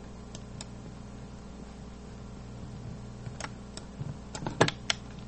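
A few sharp computer keyboard and mouse clicks, with a quick run of clicks near the end, over a steady low background hum.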